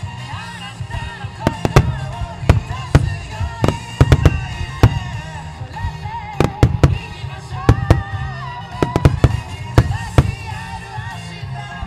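A starmine fireworks display: shells launching and bursting in quick, uneven clusters of sharp bangs, over steady music with a melody.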